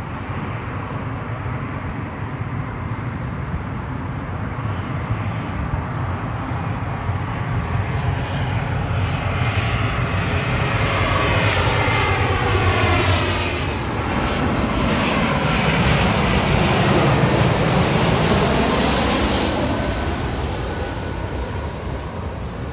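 Twin-engine jet airliner on final approach with its landing gear down, passing low overhead. Its engine noise builds to its loudest about two-thirds of the way through, with whining tones sliding down in pitch as it goes past, then eases off near the end as it heads away.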